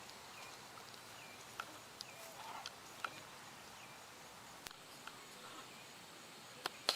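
Faint, scattered chirps and small clicks from caged birds.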